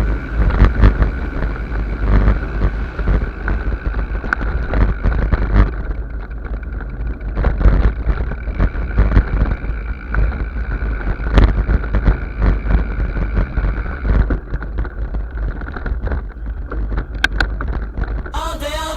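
Mountain bike ridden over rough trail: wind buffeting the microphone with a constant low rumble, and frequent sharp rattles and knocks from the bike over the ground.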